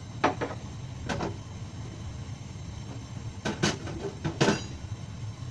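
Sharp knocks and clatters of kitchen things being handled: two quick knocks near the start, one about a second in, and a few more near the end, the last being the loudest.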